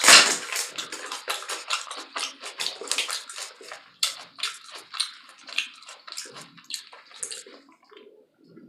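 Close-miked chewing of crunchy taco salad: rapid, irregular crunches, loudest at the start and thinning out in the last second or so.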